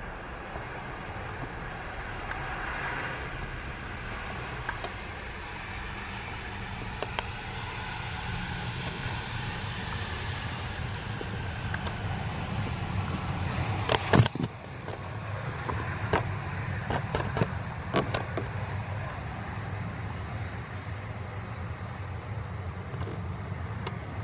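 Distant jet-engine noise from a taxiing Boeing 737-800's CFM56 turbofans, a hiss that swells and then fades, over a steady low rumble. A cluster of sharp knocks comes about 14 seconds in, followed by a few scattered clicks.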